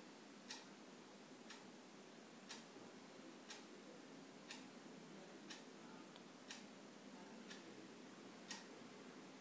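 Faint, steady ticking of a clock, one tick each second, over quiet room hiss.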